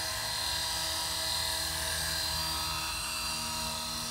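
450-size radio-controlled helicopter in an Airwolf scale body flying low, its motor and rotors running with a steady whine.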